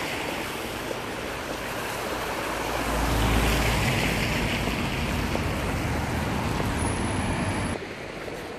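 Traffic on a rain-wet road: tyres hissing on the wet tarmac, with a car passing close about three seconds in, louder and deeper. The sound drops off sharply near the end.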